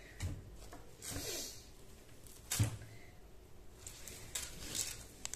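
Cloth rustling as a folded embroidered suit piece is handled, lifted and unfolded, with a few soft knocks; the sharpest knock comes about two and a half seconds in.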